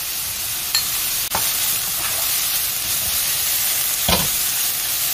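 Chayote shoots stir-frying in a wok with a steady sizzle. A spatula knocks and scrapes against the pan a few times, loudest about four seconds in.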